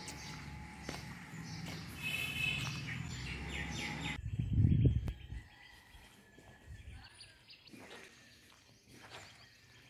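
Outdoor ambience of birds chirping over a steady low hum. About halfway the sound changes abruptly, with a brief loud low rumble, then it becomes quieter.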